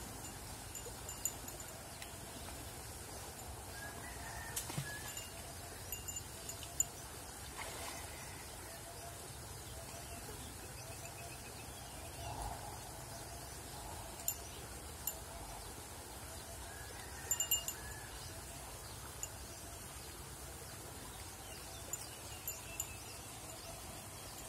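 Quiet outdoor background with faint bird calls, some water movement and a scattering of short, sharp high ticks.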